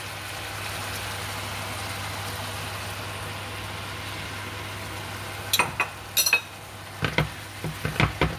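Broccoli, cauliflower, black fungus and pork sizzling in a nonstick wok, a steady hiss over a low hum. About five and a half seconds in, a spatula scrapes and knocks against the pan several times as the stir-fry is turned.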